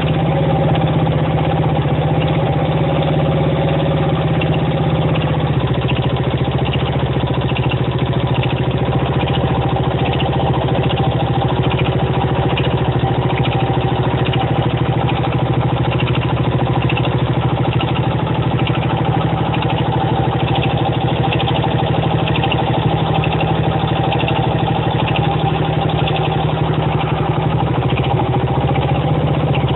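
1975 Honda XL125K's single-cylinder four-stroke engine idling steadily with a regular, repeating knock. The knock is still there after a new cam chain was fitted, so the chain is not its cause.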